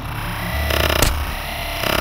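Electronic background music with a deep bass line, and one sharp crack about halfway through.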